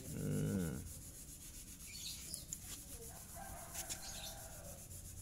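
Hands and a cloth rubbing and handling against the plastic body and engine of a Yamaha Mio Sporty scooter: a low rustling with a few small clicks. A short voice-like sound opens it.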